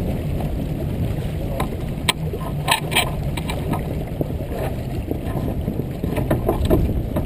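Wind and water noise aboard a sailboat under way, with a low steady hum under it. Several sharp knocks or splashes come about two to three seconds in and again near the end.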